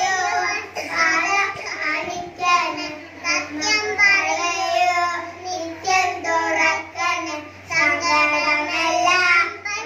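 A young boy singing a song into a microphone, in phrases with short breaks between them.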